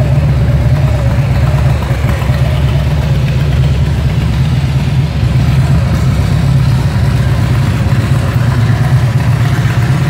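Touring motorcycle engine with true dual exhaust and a high-flow air cleaner, idling steadily and loudly.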